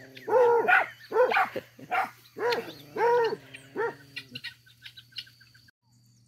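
A puppy yapping: about six short, high-pitched barks over the first four seconds, then faint chirping.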